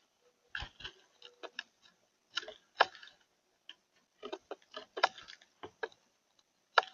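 Irregular sharp clicks and taps, some single and some in quick little clusters, with a few louder knocks among them.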